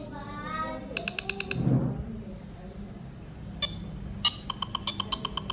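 Nothing Phone (1) ringtone playing from the phone's speaker: quick runs of short electronic blips, one brief run about a second in and a longer one in the second half, with voices in the background.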